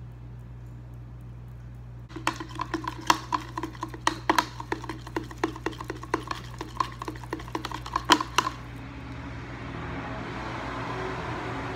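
A spoon stirring in a tall plastic tumbler, clinking against its sides about four times a second. It starts about two seconds in and stops about six seconds later, after which a soft steady rustling noise remains.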